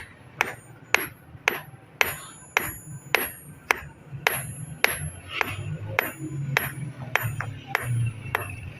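Blacksmith's hammer striking iron on an anvil, about two blows a second, each with a short metallic ring.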